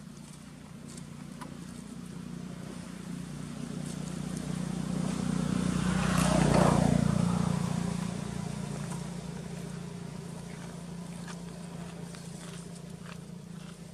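A motor vehicle passing by: its engine hum grows steadily louder, is loudest about six and a half seconds in as it goes past, then fades away.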